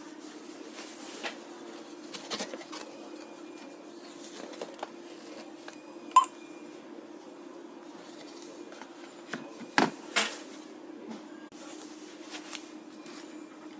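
Scattered clicks and knocks over a steady low hum, with one short, sharp ringing tick about six seconds in and a louder pair of knocks near ten seconds.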